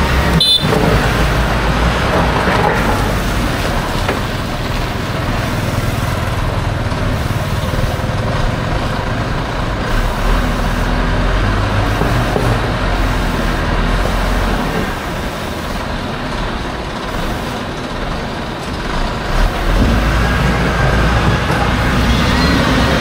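A motor vehicle running with road noise: a steady low rumble that eases off through the middle and grows louder again about twenty seconds in.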